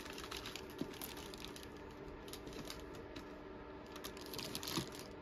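Clear plastic bag around a boxed figure crinkling and rustling as the box is handled and turned, with a few light clicks.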